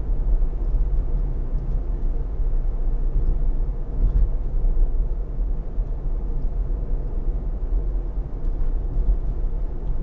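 Steady low road and tyre rumble inside the cabin of a Tesla Model Y driving at road speed.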